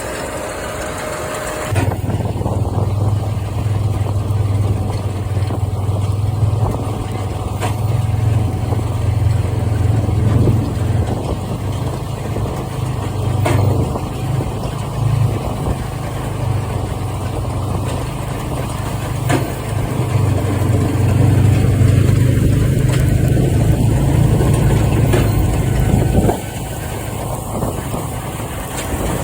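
New Holland Big Baler 340 running off a tractor's PTO: a steady low engine drone with the baler's drive turning and a few faint knocks. The drone drops away suddenly near the end.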